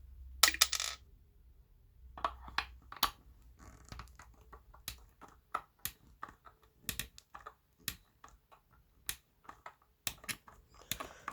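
Irregular small clicks and knocks of hands working on a disassembled subwoofer's parts, with a louder rattling cluster of clicks about half a second in.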